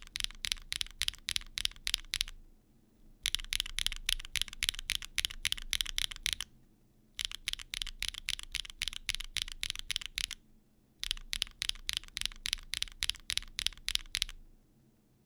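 Typing on a Neo65 Cu mechanical keyboard fitted with BSUN Nana tactile switches, in four runs of quick keystrokes about three seconds each with short pauses between. The switches sound sharp and clacky.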